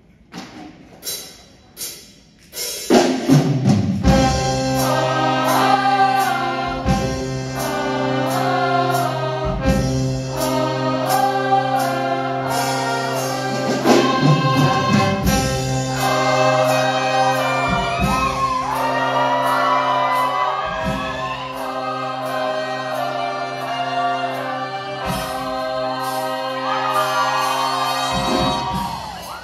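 Show choir of about twenty singers performing with instrumental accompaniment. A few soft ticks open it, then the voices and instruments come in together loudly about three seconds in and carry on with sustained chords and regular beats.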